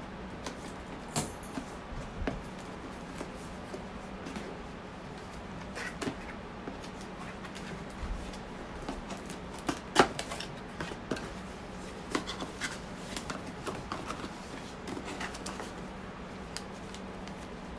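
Scattered clicks, taps and rustles of cardboard and plastic packaging being handled as a boxed USB desk fan is unpacked, with one sharper knock about ten seconds in. A low steady hum lies underneath.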